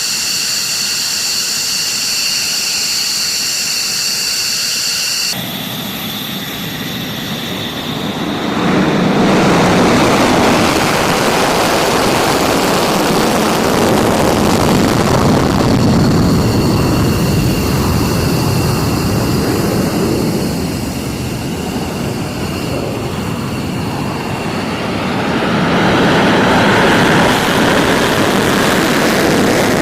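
Fighter jet engines: first a steady high-pitched turbine whine, then after an abrupt cut a broad jet roar that grows louder about a third of the way in, eases slightly and swells again near the end.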